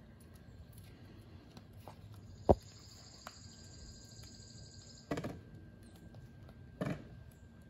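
A dog sniffing along a row of plastic toolboxes, with two short breathy bursts of sniffing about five and seven seconds in. A single sharp knock about two and a half seconds in is the loudest sound. A high buzzing hiss runs for about three seconds in the middle.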